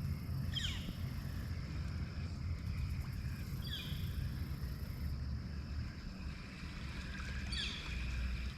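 Kayak on the water: a low, steady rumble of water moving against the hull, with a steady high hiss. Three short, quick falling chirps come about a second in, near the middle and near the end.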